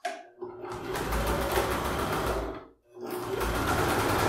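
Domestic electric sewing machine stitching a seam through layered fabric, running with a fast, even stitching rhythm. It stops briefly a little past halfway and starts again.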